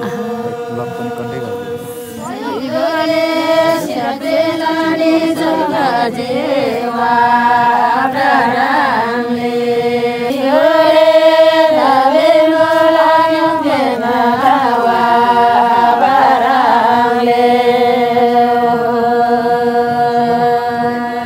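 A group of women singing a Tamang mendomaya folk song in unison, a slow melody of long held notes that step up and down.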